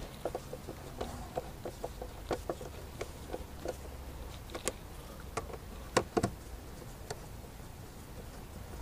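Screwdriver clicking and tapping as screws are driven into a mass airflow sensor on an engine's air intake. A quick run of light clicks comes in the first two seconds, then scattered taps, with two louder knocks about six seconds in.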